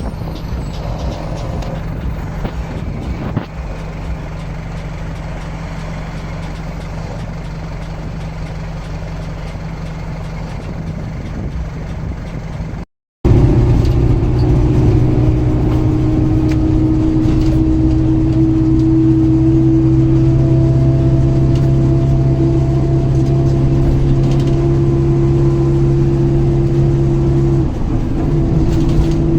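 Mercedes-Benz LO 916 bus's OM924LA four-cylinder turbo diesel running at a steady, even pitch, heard at its exhaust. About halfway through it cuts out for a moment and comes back louder, holding steady again.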